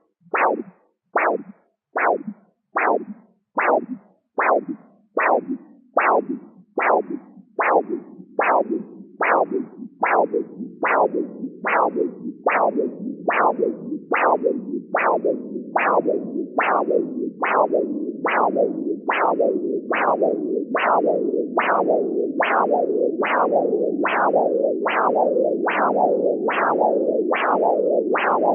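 Doppler ultrasound probe relaying arterial blood flow as pulsing whooshes, a little over one beat a second, each beat sharp at the start and falling in pitch. At first the beats stand apart with silence between them. From about a third of the way in, a continuous flow sound fills the gaps and grows steadily louder, as the cuff pressure falls and blood flows through the artery between beats as well.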